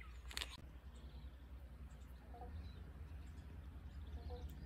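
Banjo frogs calling faintly: a few short, low single 'bonk' notes, one about two and a half seconds in and another near the end, over a steady low rumble of wind.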